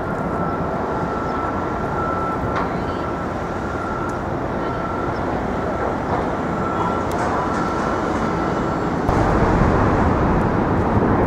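Steady city traffic noise with a faint high whine coming and going; about nine seconds in it suddenly gets louder, with a deeper rumble.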